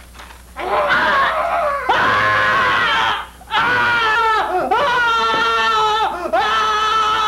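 A man screaming: a loud cry from about half a second in, a brief break near three seconds, then long, high, held screams whose pitch wavers and dips between breaths.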